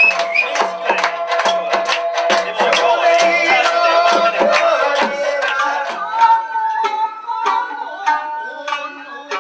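Music: a melody in held and plucked notes over quick, regular drum strikes. The drumming thins out about six seconds in, leaving mostly the sustained melody with occasional strikes.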